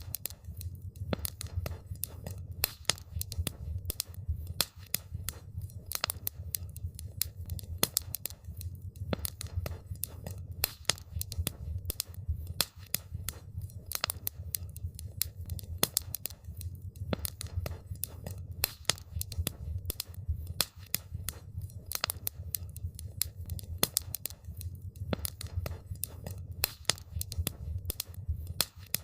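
Wood campfire crackling: dense, irregular sharp pops and snaps over a steady low rumble.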